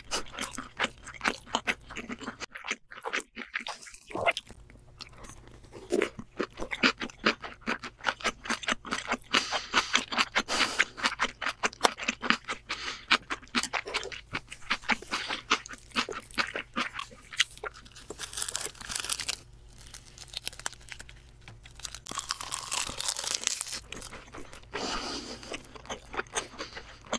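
Close-miked chewing of a mouthful of crunchy food, most likely the Hot Cheetos crust on king crab legs: many quick, irregular crunches and crackles, thickening into denser spells now and then.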